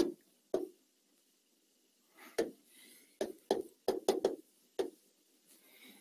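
Sharp taps and knocks of writing on a board, about nine in all with a quick run of them around four seconds in, with faint scratching between.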